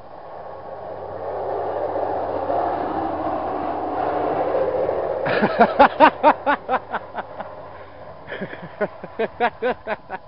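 Hi-rail truck running along railroad track: the rumble of its approach builds, then a quick run of sharp clacks, about five a second, sounds as it passes. A second, softer run follows near the end.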